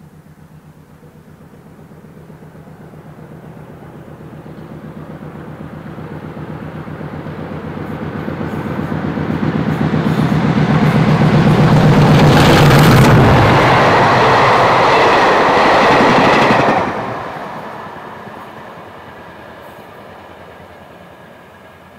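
Two Class 50 diesel locomotives, each with an English Electric 16-cylinder engine, working hard as they approach at speed hauling coaches. The engine note builds for about twelve seconds until the locomotives pass. The rolling noise of the coaches follows until the end of the train goes by, when the sound drops off suddenly and fades away.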